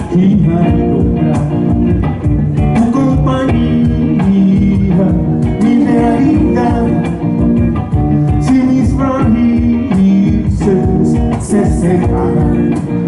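Live band music: guitar-led rock song with a steady beat.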